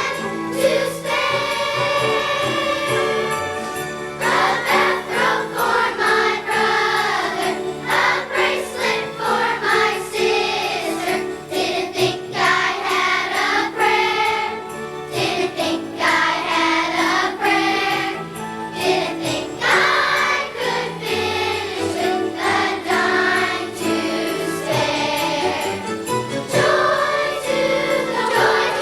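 Elementary-school children's choir singing a Christmas song together, with musical accompaniment.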